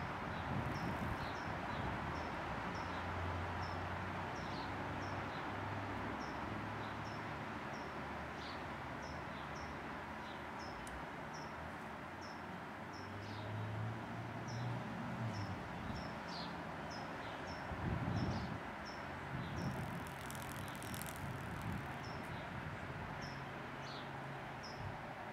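Steady background noise with a low hum that comes and goes, over a small bird's short, high chip notes repeated about one to two times a second.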